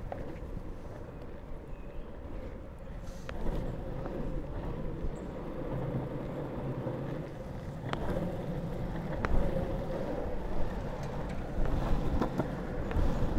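Drop-through longboard's wheels rolling over asphalt: a steady rumble that gets louder a few seconds in, broken by a few sharp clicks.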